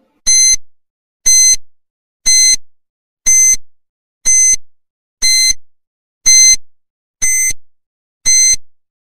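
Countdown timer sound effect: nine short electronic beeps, one a second, each a high tone lasting about a third of a second.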